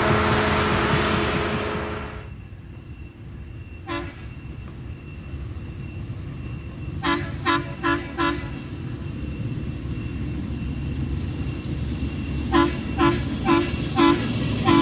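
Air horns on railway track-maintenance equipment sounding short toots: one about four seconds in, then two quick sets of four. Before that, loud machinery noise with a steady tone dies away about two seconds in.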